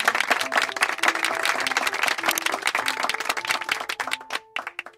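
Applause with a short tune of held notes stepping up and down beneath it, thinning out and stopping just before the end.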